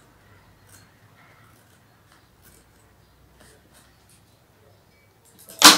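Faint rustling and small ticks of hands working fabric over a cardboard box, then one short, loud, noisy burst just before the end.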